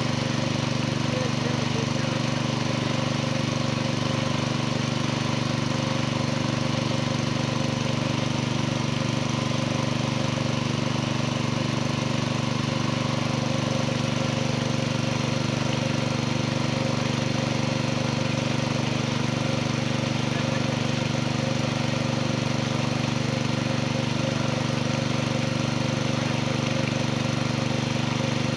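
An engine running steadily nearby, an even low drone with a slight regular pulse and no change in speed.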